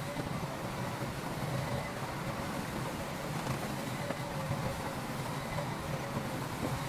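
Diesel engine of heavy earthmoving machinery running steadily, with a faint steady whine above the engine note.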